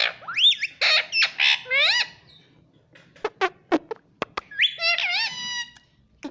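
Pet ringneck parrot squawking and calling: a run of warbling, squawky calls over the first two seconds, then several sharp clicks, then a long rising, wavering call near the end.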